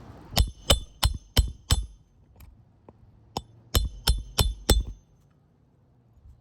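Hammer blows on metal driving roofing nails back into asphalt shingles, each blow ringing. There are two runs of five quick strikes, about three a second, with a pause of about a second and a half between them.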